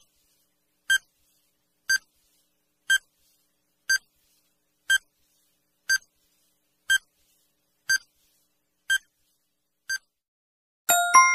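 Quiz countdown timer sound effect: a short electronic beep once a second, eleven in all, then a louder chime of several ringing tones near the end as the countdown reaches zero.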